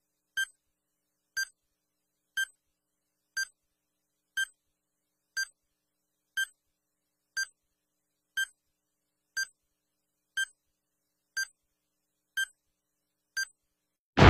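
Countdown timer beeping: one short high beep each second, evenly spaced with silence between, counting down to zero. A loud blast of noise starts right at the very end.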